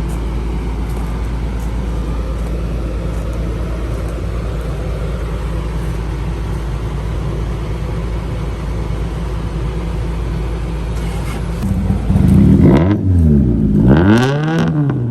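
Car engine running steadily with road noise. About twelve seconds in it grows louder, and the engine pitch swings up and down about twice as it is revved.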